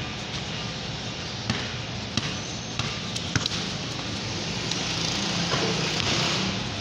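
A ball bouncing on a concrete floor: a few sharp, irregularly spaced bounces, over a steady low background hum.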